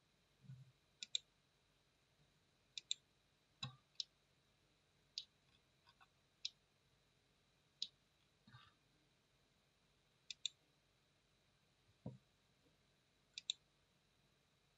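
Computer mouse button clicking at irregular intervals, about nine times. Many clicks come as a quick double tick of press and release. A few soft low thumps are heard between them.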